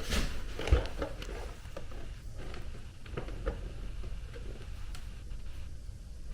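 Scattered light clicks and taps of equipment being handled, over a low steady rumble.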